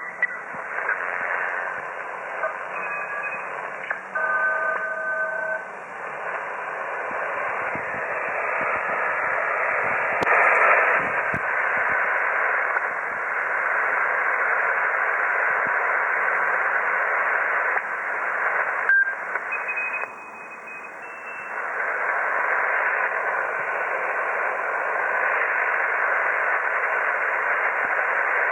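Shortwave receiver audio filled with a steady rushing hiss of interference (white-noise QRM of unknown source) across the receiver's passband. A few short steady whistles of other carriers sound briefly near the start and again about two-thirds through, with a click around the middle and a short dip in the hiss after the second click.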